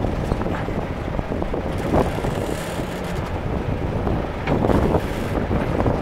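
Case 580C loader backhoe engine running while the backhoe boom is worked, with louder surges about two seconds in and again near five seconds. Wind buffets the microphone throughout.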